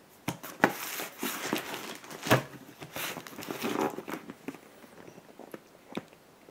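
Cardboard shipping box being handled on a tabletop: rustling and scraping of cardboard and packing tape, with several sharp knocks. It goes quieter from about four seconds in.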